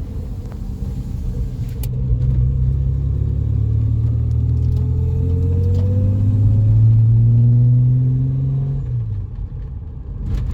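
Holden Commodore engine pulling through a gear on the freshly fitted T5 manual gearbox, rising steadily in pitch for several seconds, then dropping suddenly near the end as the gear is changed: a smooth upshift with no gearbox noise.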